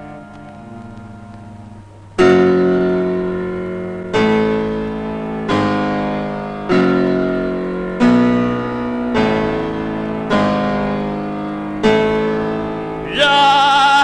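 Film music: soft sustained tones, then from about two seconds in a piano strikes a slow series of loud chords, eight in all, each left to ring and fade. Near the end a wavering sung line enters.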